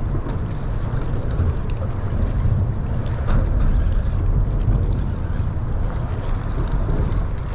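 Wind buffeting the microphone, a steady low rumble, over the sounds of an open boat on the water.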